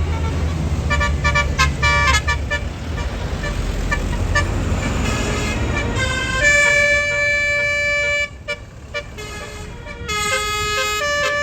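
Tour bus engine running with short, choppy horn toots, then from about six and a half seconds in a Basuri multi-tone 'telolet' horn plays a tune of held notes, changing pitch every second or so.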